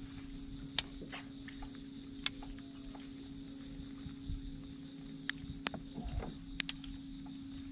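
Bass boat's bow-mounted trolling motor giving a steady low hum, with scattered sharp ticks and clicks from a rod being cast and a fishing reel being worked.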